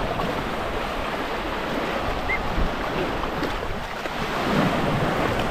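Sea waves washing onto the shore as a steady rush, with some wind rumbling on the microphone.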